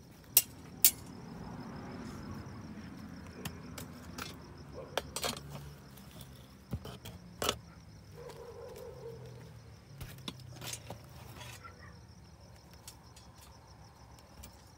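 Insects chirping steadily at a high pitch, with sharp clicks and clinks every few seconds, the loudest two just after the start.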